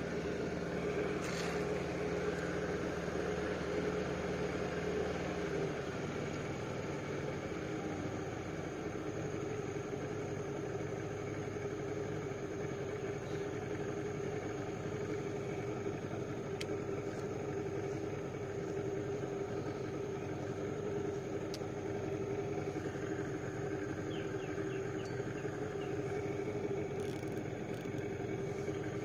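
Boat motor running steadily under way at trolling speed; its lower tones drop away about six seconds in.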